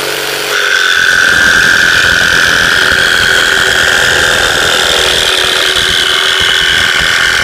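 Electric jig saw running at full speed with a steady whine. About half a second in it grows louder and rougher as the reciprocating blade starts cutting into the wood.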